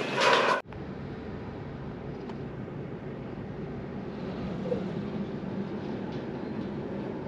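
Steady low rumble of a moving vehicle. A brief burst of louder noise with clicks cuts off abruptly under a second in.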